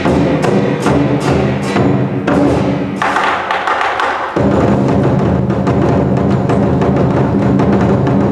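Lion dance percussion: a big Chinese drum with clashing cymbals beating out a quick, steady rhythm. About three seconds in the deep drum drops out briefly under ringing cymbals, and the full drum-and-cymbal beat comes back about four and a half seconds in.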